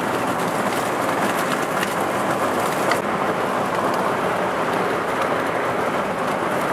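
Steady hiss of rain falling, with fine scattered patters, at an even level throughout.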